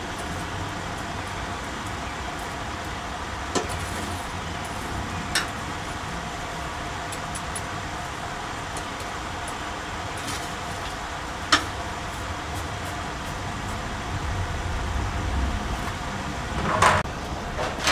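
Steady rushing of a coal forge's air blower feeding the fire, with a few sharp metallic clinks of tongs and steel and a louder clatter near the end.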